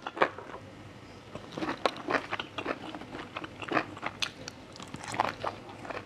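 Close-miked chewing of a mouthful of grilled pork intestine salad with fresh herbs: irregular wet smacks and small clicks of biting and mastication.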